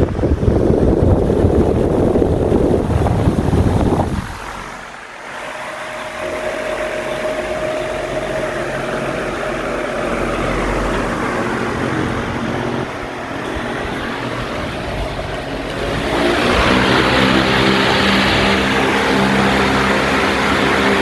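Tron 60 cm oscillating wall fan running: for the first four seconds its airflow buffets the microphone, then a steady motor hum with the whoosh of the blades comes through, growing louder about sixteen seconds in.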